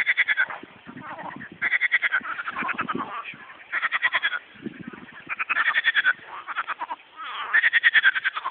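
Frogs calling in a chorus at a pond: bouts of rapid, rattling pulsed croaks, each under a second long, one after another with overlapping calls at slightly different pitches.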